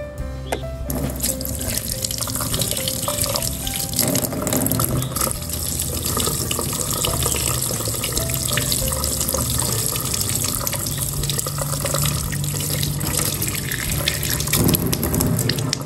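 Tap water running into a stainless steel sink and splashing over a pair of scissors held in the stream, starting about a second in.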